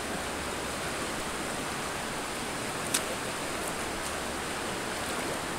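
Steady rush of a flowing river, with a single sharp click about three seconds in.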